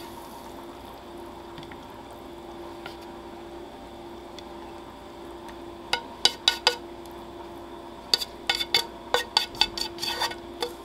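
Chopsticks clicking and scraping against a non-stick frying pan as pasta is pushed out of it onto a wooden plate: quiet at first, then a quick run of sharp clicks from about halfway through. A steady low hum runs underneath.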